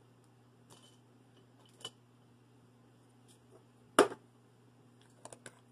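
Art supplies being handled on a hard surface: a few light clicks and taps, with one sharp knock about four seconds in, as dip pens and nibs are picked up and set down.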